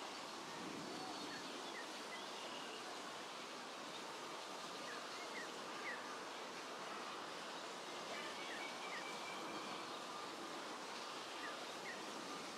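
Quiet outdoor ambience: a steady hiss with faint, short high chirps now and then.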